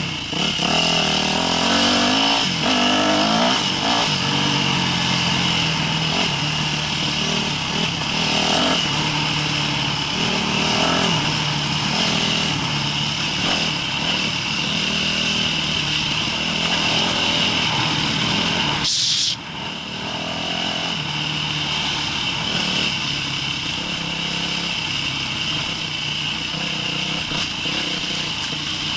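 Yamaha YZ250F dirt bike's single-cylinder four-stroke engine running under way on a trail, its pitch rising and falling as the throttle opens and closes. A brief sharp noise comes about two-thirds of the way in, after which the engine sounds a little quieter.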